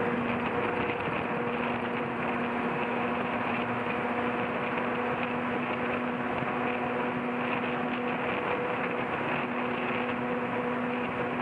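Jeep Liberty (KJ) driving at a steady speed: a steady engine drone over even tyre and road noise.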